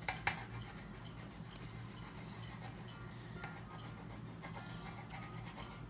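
Coloured pencils scratching and rubbing on paper as a drawing is coloured in, with a sharp tap about a third of a second in.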